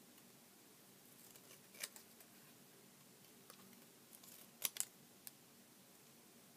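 Small detail scissors snipping paper in a few faint, separate cuts, the loudest two close together about two-thirds of the way in.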